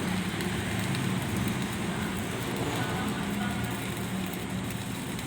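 Electric arc welding: the arc's steady crackling hiss over a low hum.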